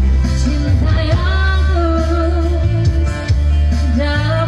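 A woman singing into a microphone over backing music with a strong, steady bass line.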